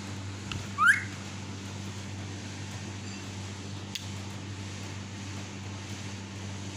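A yellow parrot gives one short, sharp whistle that rises in pitch about a second in, over a steady low hum of a fan or air conditioner.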